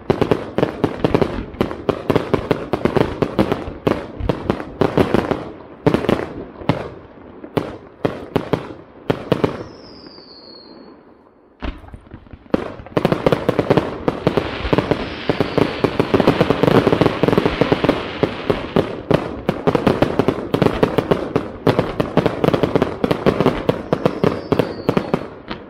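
Fireworks display: cakes and shells firing in rapid, dense volleys of bangs and crackle. The barrage thins out about eight seconds in, with a brief falling whistle, then a single sharp bang near twelve seconds opens another dense volley.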